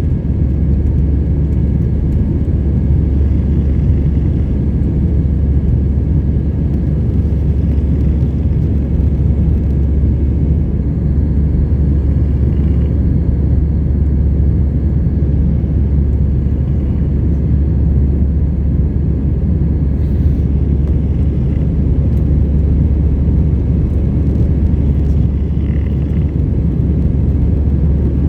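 Steady low drone of engine and airflow noise inside the cabin of an Airbus A321 airliner.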